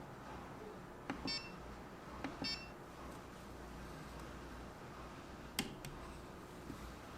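Prusa Mini+ 3D printer's buzzer giving two short beeps about a second apart, each with a small click, over a low steady hum. A sharp click comes near the end.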